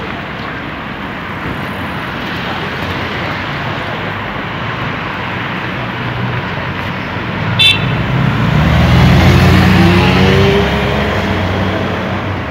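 Road traffic on a city street, with a short high horn toot about two-thirds of the way through, then motorcycles and cars passing close, one engine's note rising as it goes by.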